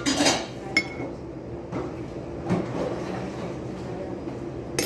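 Cutlery and dishes clinking: a ringing clink about a second in and a sharp one near the end, with softer clatter between.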